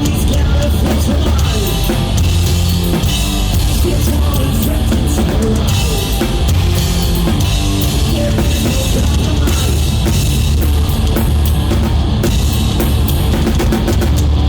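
Live heavy rock band playing loud: drum kit with dense cymbal crashes and bass drum under distorted electric guitars and bass.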